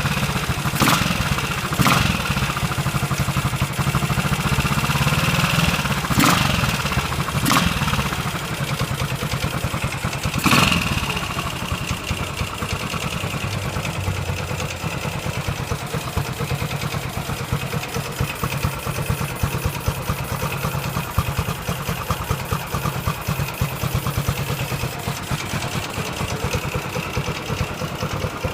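Ducati 450 Desmo single-cylinder engine running, with a few sharp blips of the throttle in the first ten seconds, then settling to a steady idle.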